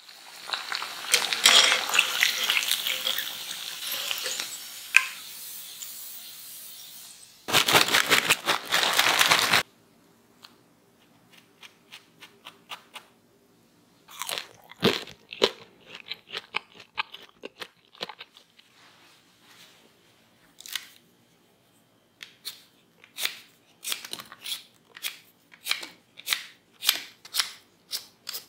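Hot oil sizzling and crackling around potato balls deep-frying, with a louder burst of dense crackling for about two seconds. Then scattered crisp crunches and clicks, and near the end a vegetable peeler scraping the skin off a raw potato in quick strokes, about two a second.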